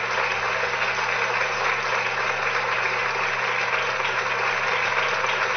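Steady noise, a constant hiss with a low hum beneath it, unchanging throughout.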